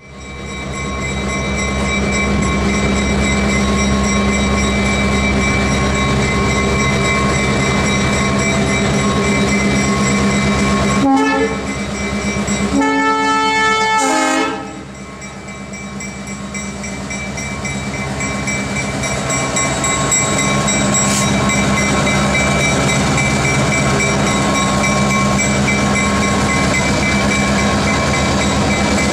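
EMD GP38-2 diesel locomotive rolling slowly past, its 16-cylinder 645 engine running steadily. About midway the horn sounds a short blast and then a longer one. After the horn the engine sound falls away for a moment, then builds again.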